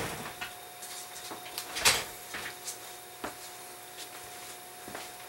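Scattered light clicks and knocks of small tools being handled on a watchmaker's bench, with one louder knock about two seconds in, over a faint steady hum.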